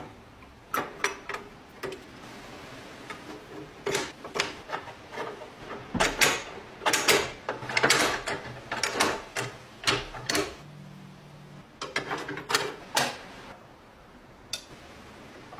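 A metal lock being handled and worked: irregular sharp clicks and clacks of its mechanism and parts, in bunches with short pauses between.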